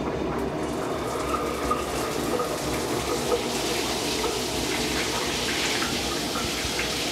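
Water pouring steadily from a large square rain shower head, falling into the shower.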